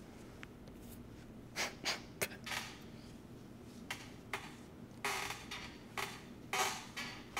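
Faint soft brushing and rustling sounds, a series of short strokes at irregular intervals, from a hand petting a cat's fur close to the microphone.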